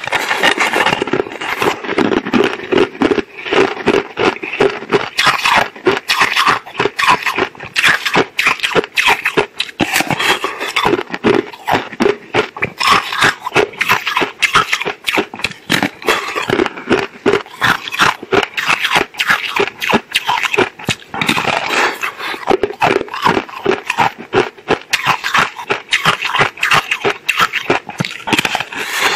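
Thin star-shaped slab of green-coloured ice being bitten and chewed: rapid, dense crunching and cracking, many sharp snaps a second, without a break.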